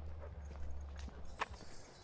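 Footsteps on a trail, a few scattered short clicks with one sharper click about a second and a half in, over a low rumble that stops after about a second.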